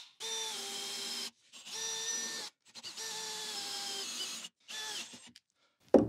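Milwaukee M18 cordless drill boring into a wooden door with an auger bit, its motor whining steadily. There are four runs of a second or so each, the pitch dropping slightly soon after each start, each cut off abruptly.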